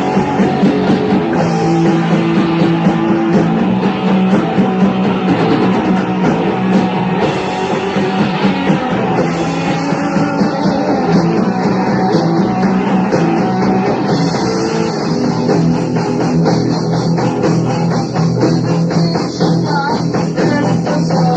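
Live rock band, with lead and rhythm electric guitars, bass guitar and drum kit, playing a loud, driving hard-rock passage with a steady beat.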